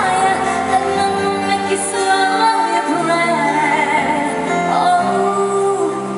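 A woman singing a pop song live over loud backing music, holding long notes with vibrato.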